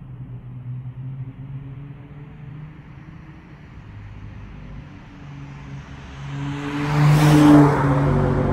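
Dodge Charger SXT's V6 running through a Jones turbine-style muffler exhaust as the car approaches and drives past close by, loudest about seven seconds in, then pulling away.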